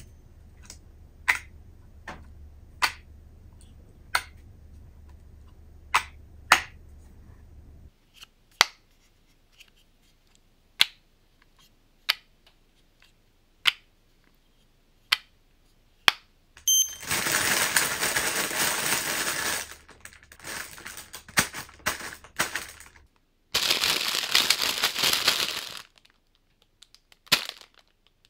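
Wireless earbud charging case lid snapping open and shut, one sharp click every second or two. The first clicks come over a low hum from a smartphone's built-in mic; the later ones, taken through a Shure MV88+ microphone, have a silent background. After that, a plastic bag of shimeji mushrooms crinkles in two long handling stretches.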